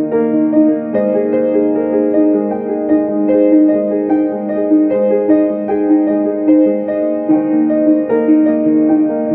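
Slow keyboard music, piano-like notes moving over held chords, with no beat.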